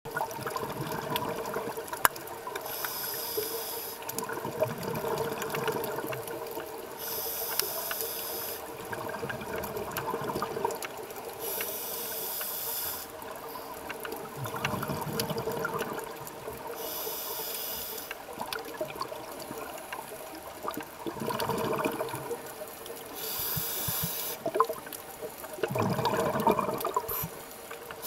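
Scuba breathing through a regulator heard underwater: a hissing inhale through the demand valve about every four to five seconds, each followed by the bubbling, gurgling rush of exhaled air.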